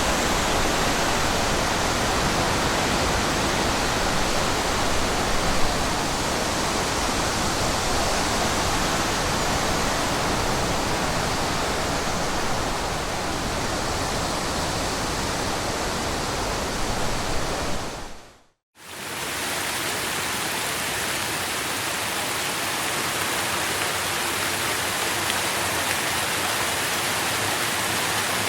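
Strong wind rushing steadily through trees. About 18 s in it fades out to a moment of silence, then a different steady, hissing forest ambience with less low rumble starts up.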